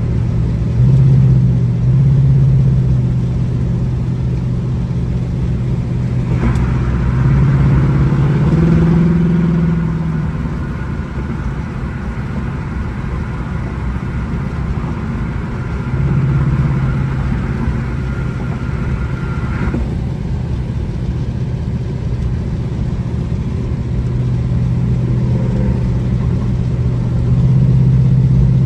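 Jaguar XJR's supercharged V8 driving along, heard from inside the car with road noise. The engine drone rises in pitch and loudness in several surges as the car accelerates.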